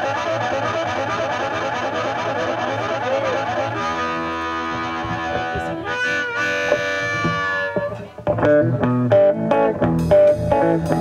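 Live blues-rock band: a harmonica solo, played into a vocal microphone, over electric guitar, bass guitar and drums. About eight seconds in the harmonica drops out and the electric guitar carries on with a riff of short notes over the bass and drums.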